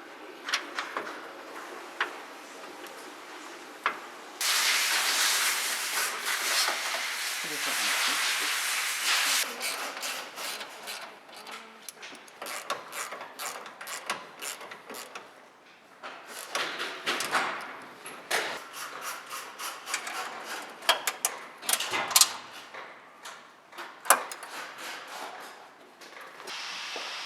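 Car workshop work: a loud hiss lasting about five seconds, then a run of sharp clicks and knocks from hand tools and parts being handled.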